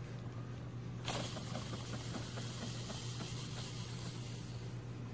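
Faint steady background hiss over a low hum, with a soft click about a second in and a few faint small rustles after it.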